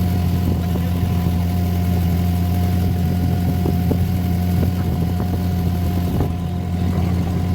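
Boat engine running steadily with an even, low hum.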